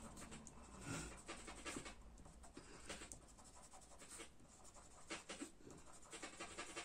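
Faint scratching of a Staedtler Karat Aquarell watercolour pencil on watercolour paper, in short irregular strokes as small leaves are shaded in.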